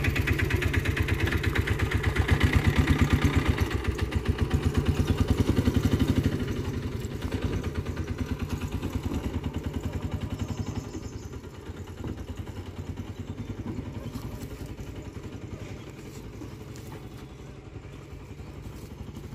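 An engine running with a steady fast pulse, loud for the first six seconds and then gradually fading.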